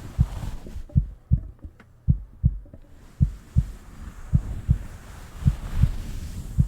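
A heartbeat heard close up: paired low thumps, lub-dub, about once a second, at a slow, even pace.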